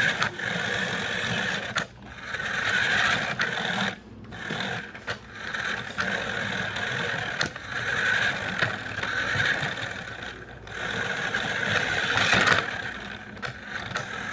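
RC car's motor and gears whining under throttle, a high steady whine that drops out briefly several times as the throttle is let off and applied again.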